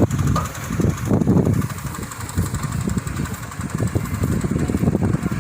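Tractor engine running, driving a straw chopper machine, with a steady, uneven rumble.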